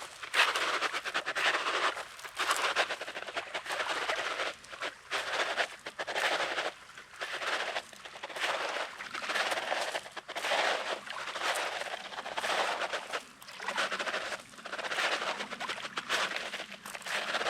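Footsteps crunching on coarse, rocky beach sand at a steady walking pace, about one step every second.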